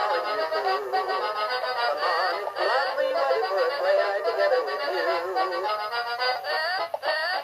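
Gemmy animated novelty toy singing a song in its electronic voice over backing music, played through the toy's small speaker with a thin, tinny sound and no bass. There is a brief break near the end.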